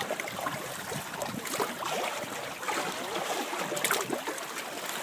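Water lapping and splashing against the side of a small boat, an uneven run of small slaps and trickles.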